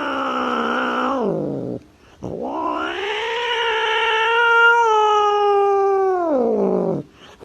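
A cat yowling in two long, drawn-out calls. The first trails off and drops in pitch just under two seconds in. The second rises, holds steady, then slides down and stops near the end.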